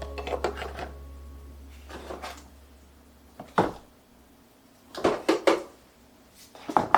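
Kitchen items being handled and set down: scattered light knocks and clatters in short clusters a second or two apart.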